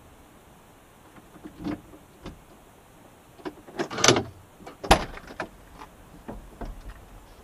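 A string of clicks, knocks and rustles from someone handling things inside a parked car's cabin. The two loudest come about four and five seconds in: a longer scraping rustle, then a sharp knock.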